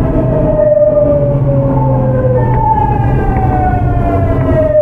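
Early Hitachi GTO-VVVF inverter of a Tokyu 9000 series electric train, whining from under the floor. Its pitch glides downward, jumps back up about two and a half seconds in, then glides down again, the stepped falling pattern of the inverter as the train slows. A steady low rumble of the running train sits beneath it.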